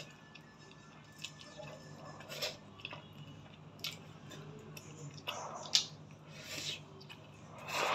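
A person slurping up strands of noodles and chewing, with wet mouth sounds and smacks at irregular intervals; one sharp smack just before six seconds is the loudest.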